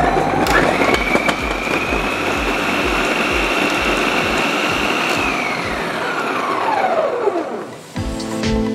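Vidiem Tusker mixer grinder's motor running with the food-processor chopping blade, cutting onions finely. The whine climbs about half a second in, holds steady, then winds down over about two seconds after the machine is switched off.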